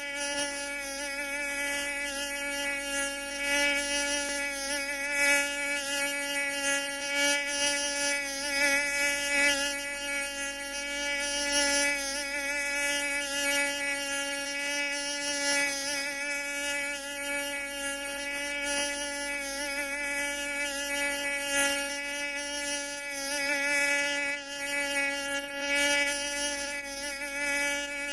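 Mosquito whining in flight: one steady buzzing tone with many overtones, swelling and fading in loudness every few seconds.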